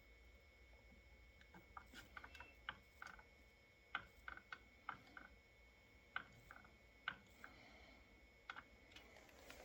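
Near silence with scattered, irregular faint clicks and ticks over a low hum.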